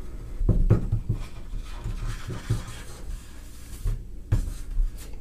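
Soft rubbing and scattered light knocks as the hot tip of a plastic welding iron is worked along a crack in a thin plastic bathtub, over a low steady hum.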